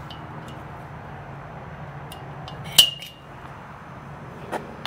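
A sharp metallic clink with a brief ringing tone about three seconds in, with a few fainter ticks and taps around it, from a metal punch and tools being handled. A low steady hum runs underneath.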